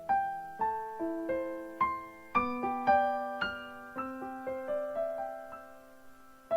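Background piano music: a slow melody of single struck notes, about two a second, each fading away.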